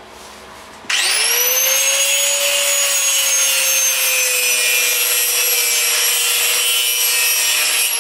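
Handheld angle grinder starting up about a second in, its motor whine rising quickly to full speed, then cutting into a steel collar on a wheel hub held in a vise, a steady high grinding screech.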